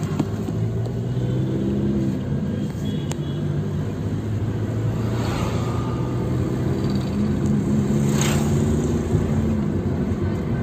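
Tata Indigo Manza driving, heard from inside the cabin: the engine runs steadily with its pitch shifting a little, under constant road rumble, with two brief rushes of noise about halfway through and near the end.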